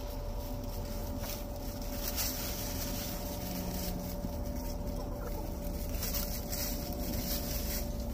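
Backyard laying hens clucking as they forage, over a steady hum.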